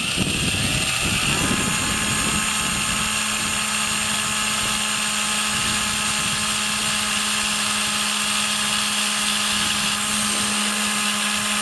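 Cordless drill running at high speed, boring through a plastic licence plate: a steady motor whine that rises slightly as it spins up at the start, then holds a constant pitch.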